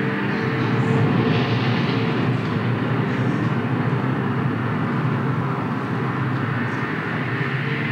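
Theatre sound-effect track: a steady rushing, rumbling noise that swells about a second in, over a low droning chord of held tones.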